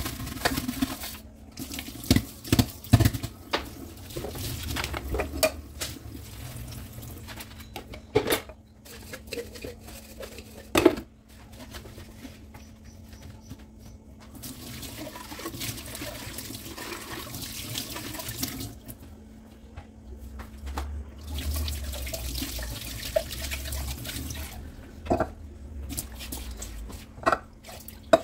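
Dishwashing at a stainless steel kitchen sink: a brush and soapy sponge scrubbing the sink bowl and a plastic blender jar, with several sharp knocks and clatters. Tap water runs near the end.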